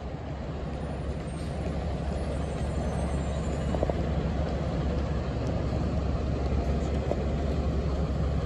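City transit bus engines running, a steady low rumble that grows gradually louder as a bus moves in close.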